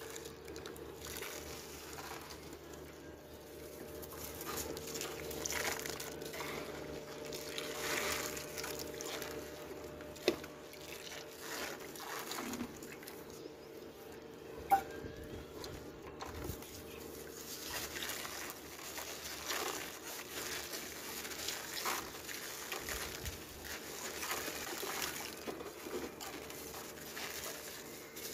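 Hands working wet sand-and-cement chunks in a tub of muddy water: water sloshing and splashing, a metal bowl scraping and dipping, and wet sand being squeezed and crumbled. Two sharp clicks are heard in the middle.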